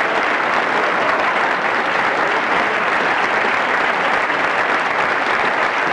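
Steady, loud applause from a crowd, a dense even clatter of clapping with no voices above it.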